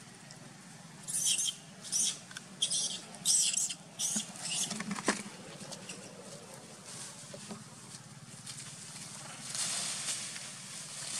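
A young macaque squealing in distress as another macaque wrestles it down: a run of about seven short, high-pitched squeals over a few seconds. Near the end a softer rush of noise follows.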